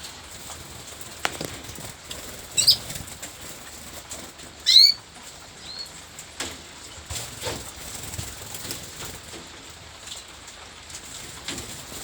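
Canaries moving about a flight cage: wings fluttering in short spells, with a few short chirps, the loudest about five seconds in.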